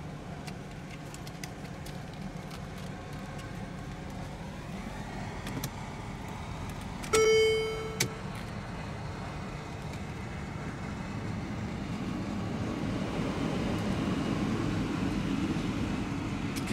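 Mercedes-Benz GLS550's 4.7-litre twin-turbo V8 running at idle, heard from the driver's seat, its sound swelling gradually in the last few seconds. About seven seconds in, a short electronic chime sounds once.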